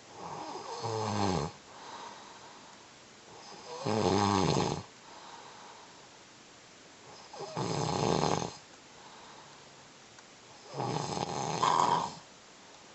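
A man snoring in his sleep: four loud snores, each about a second long and some three to four seconds apart, with faint breathing between. He has sleep apnea and is congested from a cold, which makes his snoring worse.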